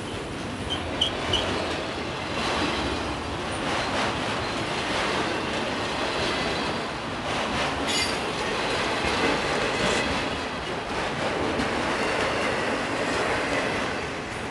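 Freight train of enclosed autorack cars rolling past close by: a steady noise of steel wheels on rail, with a few short high wheel squeals about a second in.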